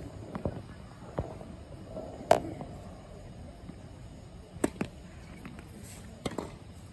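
Tennis ball bounced on a hard court before a serve, with a sharp knock about two seconds in. The serve is struck with the racket about four and a half seconds in, and the ball is hit back about a second and a half later.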